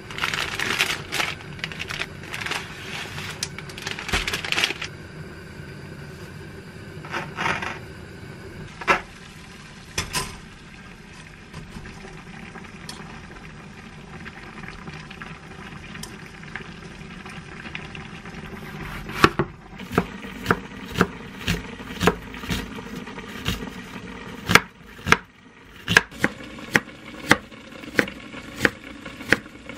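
Plastic spaghetti packet crinkling as whole-wheat spaghetti is handled and put into a pot on a gas stove. About two-thirds of the way in, a kitchen knife starts chopping onion on a wooden cutting board, sharp knocks about two a second.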